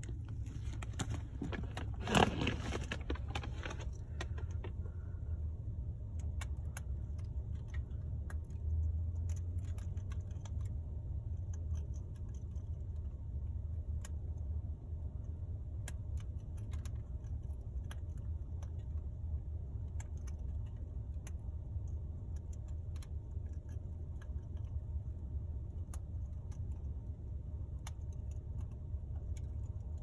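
Steady low rumble of a car cabin, with scattered sharp ticks from an African grey parrot's beak working an almond held in its foot. About two seconds in comes a brief, louder rattle.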